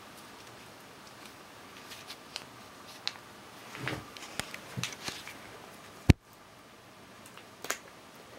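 Close handling noises: scattered rustles and small clicks from a cat licking a squeeze-tube treat held in a hand, thickest about four to five seconds in, with one sharp knock about six seconds in.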